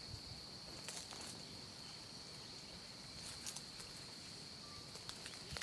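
Steady, high-pitched trill of insects in the bush, unbroken throughout, with a few faint scattered clicks.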